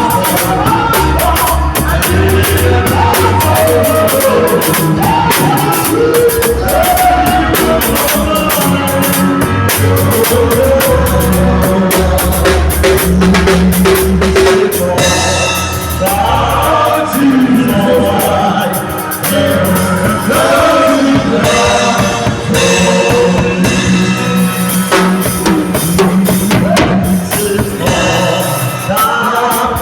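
Live band playing during a sound check: a drum kit keeping a steady beat with kick, snare and rimshots over a bass line and melody.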